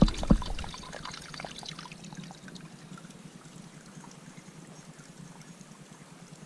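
A faint trickle of water, after a couple of knocks at the very start.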